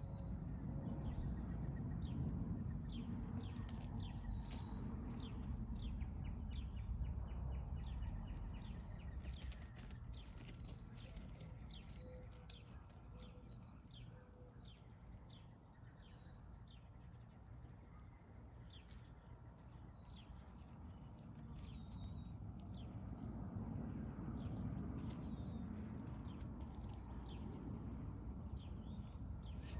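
Outdoor yard ambience: many short bird chirps over a low steady rumble, with scattered light clicks and crunches from goats stepping and grazing on gravel.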